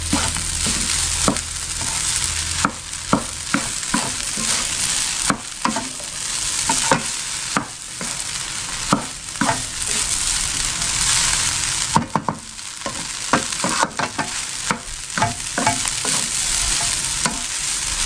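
Fried rice sizzling in a nonstick wok while a wooden spatula stirs and tosses it, with frequent short knocks and scrapes of the spatula against the pan over a steady sizzle.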